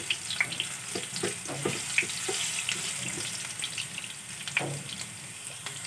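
Crushed garlic cloves sizzling gently in oil in a frying pan on low heat, a steady hiss with scattered small pops and crackles.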